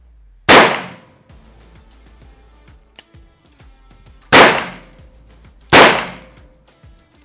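Three shots from a Smith & Wesson six-shot revolver firing .357 Magnum rounds, the first about half a second in and the other two close together near the end, each dying away with a short echo. A short faint click falls between the first and second shot.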